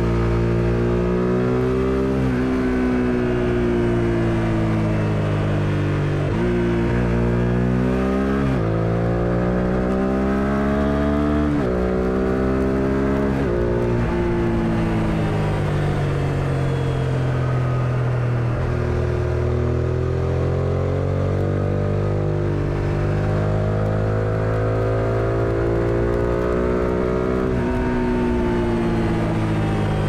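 A 1999 Suzuki SV650S's V-twin engine pulling hard through the gears. Its exhaust note climbs and drops sharply at each of about five upshifts in the first fifteen seconds, then eases off and builds again more gently while cruising, over a steady rush of wind.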